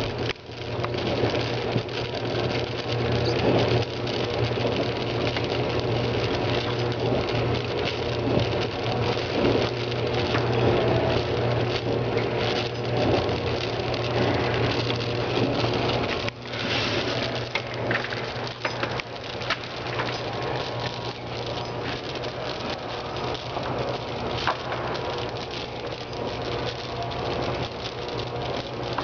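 Tecweigh gum feeder running with a steady motor hum and a dense rattle of gum pieces moving through it. About halfway through the sound changes to a lighter pattering, like pieces dropping from the discharge tube into a box.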